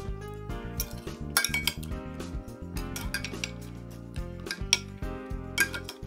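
Metal spoon and table knife clinking and scraping against a ceramic plate several times, over background music.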